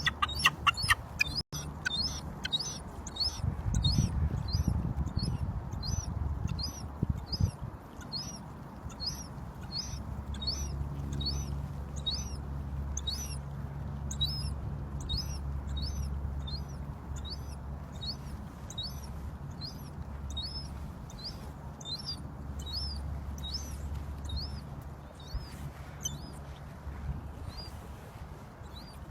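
Gull chick begging for food: a thin, high-pitched peep repeated about twice a second, over and over. The first second and a half holds a louder, fuller call, and a low rumble runs underneath.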